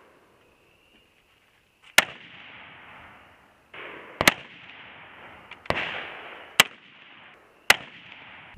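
AR-15 rifle shots fired from shooting benches: about five sharp cracks spaced irregularly a second or two apart, each trailing off into a fading echo.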